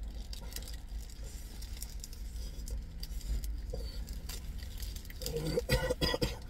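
A person eating a chicken chilli wrap: chewing and small crinkles from its paper wrapper, then a louder bout of paper rustling about five seconds in as the wrapper is lifted.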